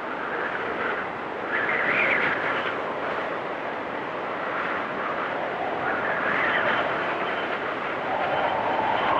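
Storm wind whistling in gusts that swell and fade, the whistle drifting up and down in pitch; stronger gusts come about two seconds in, again past the middle, and near the end.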